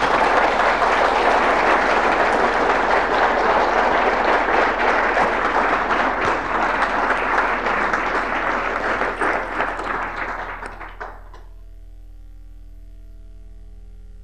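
Audience applauding, the clapping thinning out and dying away after about eleven seconds.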